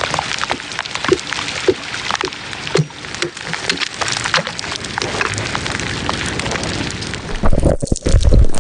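Dense crackling full of small clicks and ticks, recorded very close up with a special microphone. A few heavy low thumps come near the end.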